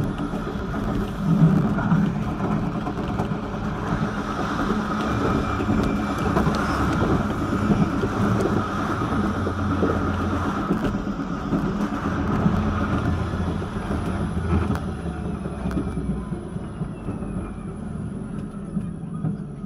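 Vityaz-M low-floor tram running along its track: a steady rumble of wheels on rails with motor and running-gear noise, played back at double speed.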